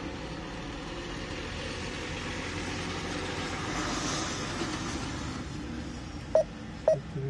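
Truck engine idling, heard from inside the cab, with a hiss that swells and fades around the middle. Near the end, three short beeps as the touchscreen navigator is tapped.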